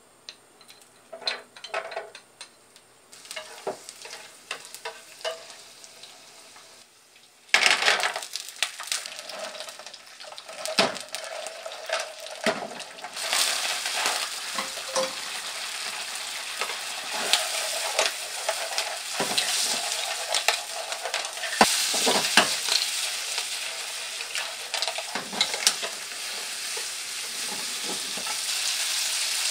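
Spaghetti and clams sizzling in hot olive oil in a frying pan while wooden chopsticks stir and toss them, tapping and scraping against the pan. The first few seconds hold only scattered light taps, then about seven seconds in a loud sizzle starts suddenly as food goes into the hot oil, and the frying and stirring run on from there.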